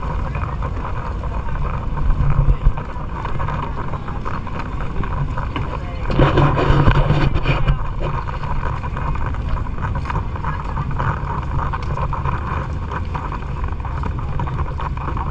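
Boat engine running steadily, with wind buffeting the microphone; about six seconds in a louder rush of noise swells for a second or two before settling back.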